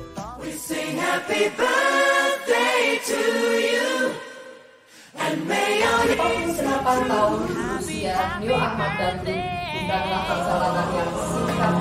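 A group of voices singing together like a choir, with a brief break about four and a half seconds in before the singing resumes.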